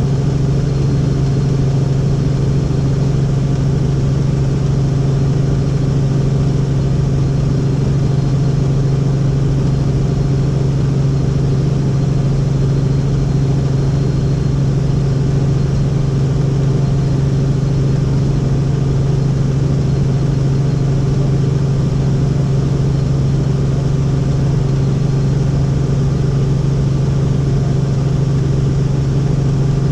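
Helicopter in steady flight: a constant, loud drone of engine and rotors with a strong low hum that does not change.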